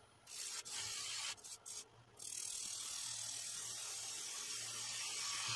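A turning tool cutting the rim of a spinning sycamore vase on a wood lathe, peeling off shavings with a rasping hiss. The first cuts are short and broken, and from about two seconds in the cut runs steadily.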